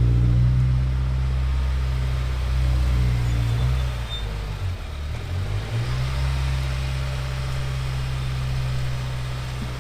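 2015 Subaru WRX's turbocharged flat-four engine running through a freshly fitted Invidia N1 cat-back exhaust, a steady low drone that wavers and drops briefly about four to six seconds in, then settles again.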